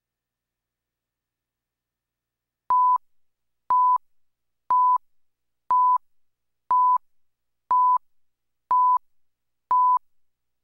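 Countdown leader beeps on a broadcast master tape: silence, then starting about two and a half seconds in, eight short identical steady-pitch tone beeps, one a second, one on each number as it counts down from ten to three.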